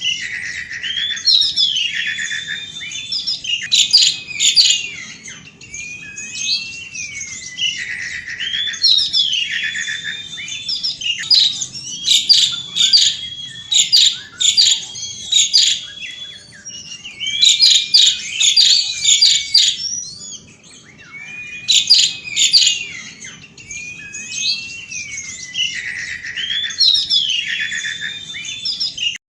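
Asian pied starling (jalak suren) singing continuously, repeating loud phrases of rising and falling whistles mixed with rapid, harsh chattering.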